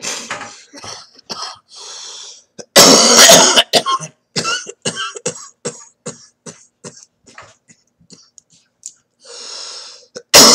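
A man coughing while smoking a cannabis spliff: a breath drawn in, then a loud coughing fit about three seconds in, trailing off into a string of short coughs and throat sounds, with another breath drawn in near the end.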